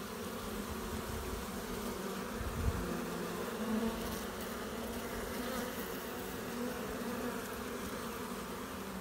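Honey bees buzzing in a steady, many-voiced hum at a crowded hive entrance, with heavy foraging traffic of bees flying in loaded with pollen. A brief low thump about two and a half seconds in.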